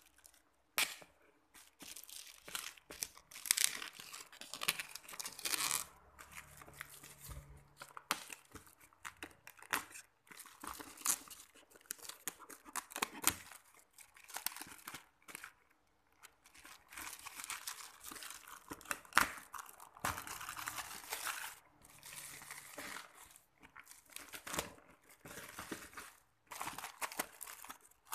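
Black plastic parcel wrapping being torn open and crumpled by hand: irregular bursts of tearing and crinkling with sharp crackles and short pauses.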